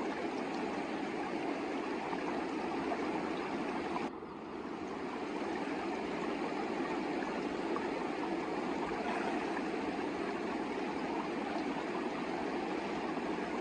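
A mountain river rushing steadily over rocks. The sound dips briefly about four seconds in, then returns to full strength.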